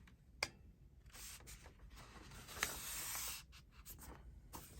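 Paper being handled on a craft table: a few light clicks and taps, and a faint scratchy sliding sound lasting about two seconds, starting about a second in.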